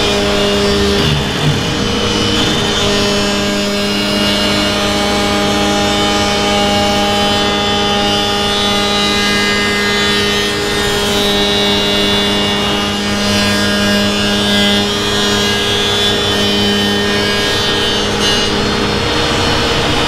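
Table spindle moulder (wood shaper) running at speed, its cutter shaping the curved edge of a wooden board that is guided against the spindle's bearing ring. The machine's steady whine holds throughout.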